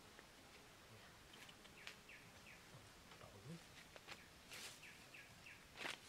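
Faint outdoor ambience: a bird gives short falling chirps in two small groups, about two seconds in and again about five seconds in. Rustling footsteps through grass and brush come now and then, the loudest near the end.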